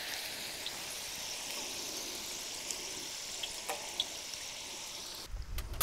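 French fries frying in hot oil in a pan: a steady sizzle with small scattered pops while a wire skimmer lifts them out. A little after five seconds the sizzle stops and a low rumble with a rapid run of clicks takes over.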